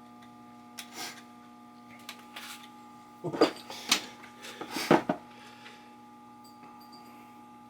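Scattered clicks and clatters of hands handling an electrical outlet and its wires, loudest in a cluster around the middle, over a steady electrical hum.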